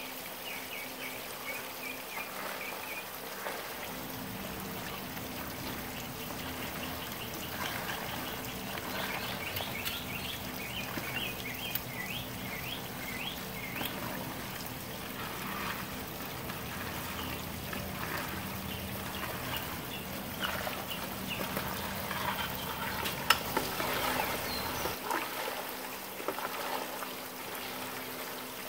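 A wooden paddle stirs crawfish and liquid in a large aluminium boiling pot, with sloshing and splashing throughout. Birds chirp high above it, and a low steady hum runs from about four seconds in until near the end.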